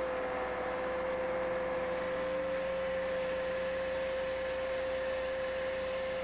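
Dowel-bar slot-cutting machine running, its gang of saw blades cutting slots across a concrete pavement joint. It makes a steady whine at one pitch over a constant hiss.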